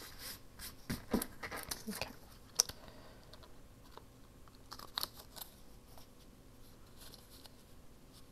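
Paper and small craft pieces being handled: crinkling and rustling in the first couple of seconds, a sharp click a little after, then a few more light clicks and taps.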